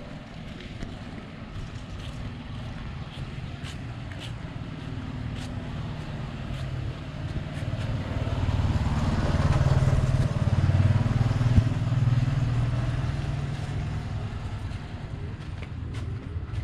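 A motor engine passing by: a low drone that grows louder toward the middle and fades again.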